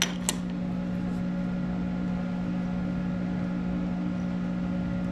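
Monarch 10ee lathe humming steadily with a fixed pitch, while two sharp metallic clicks come right at the start as a tool holder is set onto the quick-change toolpost.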